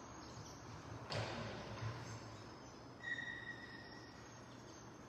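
Quiet room tone with a low steady hum, a soft knock about a second in, and a brief high-pitched squeak or tone lasting under a second about three seconds in.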